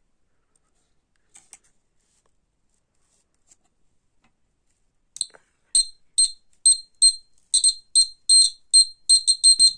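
Battery-powered buzzer of a homemade earthquake detector giving short, high-pitched beeps each time the shaken hanging bolt touches the copper wire ring and closes the circuit. The beeps start about halfway through, irregularly spaced, and come faster toward the end; before them there are only a couple of faint clicks.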